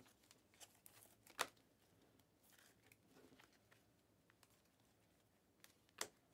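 Glossy Panini Mosaic trading cards handled in a stack, one card at a time moved to the back: quiet sliding and rustling with a few sharp snaps of card against card, the loudest about a second in and near the end.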